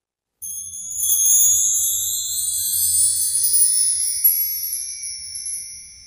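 Shimmering chime music sting: a cascade of high, tinkling bell-like tones that comes in suddenly, swells within about a second and slowly fades away, over a faint low hum.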